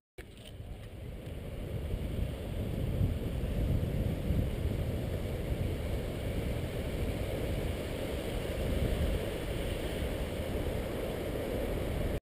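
Steady wind noise on the microphone over the wash of ocean surf, fading in over the first couple of seconds.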